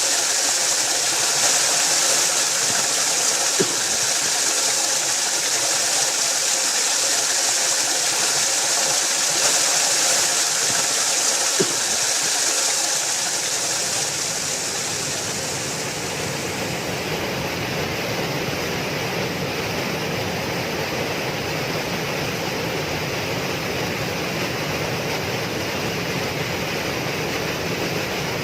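Waterfall rushing steadily. About halfway through, the rush turns deeper and less hissy.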